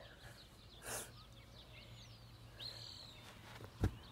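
Faint outdoor background with birds chirping. There is a brief rustle about a second in, and one dull thud near the end as a person drops onto hands and feet on the grass after a failed backward jump.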